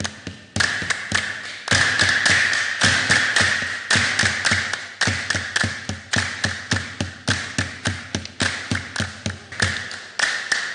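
Hands drumming on a box held on the lap as a drum: a fast, steady rhythm of slaps over a ringing tone.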